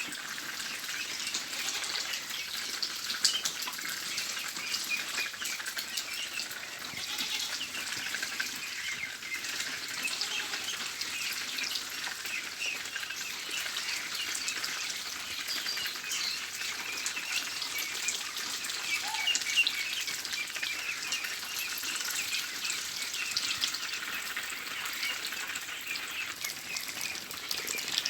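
A large flock of ducks calling at once: a dense, steady chatter of many short, overlapping high calls.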